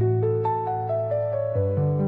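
Soft instrumental background music: a slow melody stepping downward over held low notes, with the low notes changing about one and a half seconds in.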